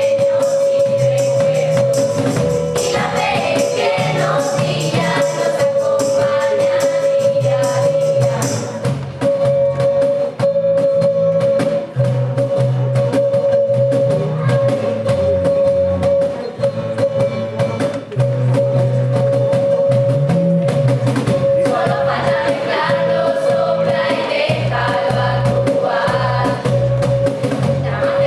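A mixed group of teenage voices singing a song together into microphones, with instrumental backing and a bass line underneath. A steady held tone runs through it, breaking off only briefly now and then.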